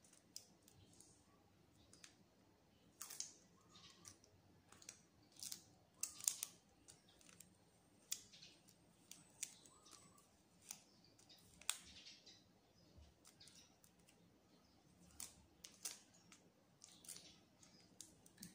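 Faint, irregular light clicks and crackles of a smartphone and thin plastic film being handled on a table as dust is cleared off the screen.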